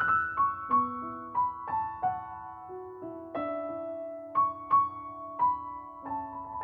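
Background music: a soft, slow piano melody, single notes struck a few times a second and left ringing.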